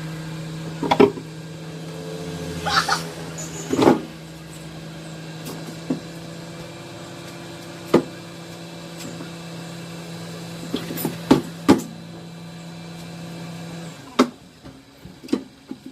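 A steady machine hum runs and cuts out about 14 seconds in, with sharp metal clanks and knocks scattered through it, typical of steel being handled and struck during fabrication work.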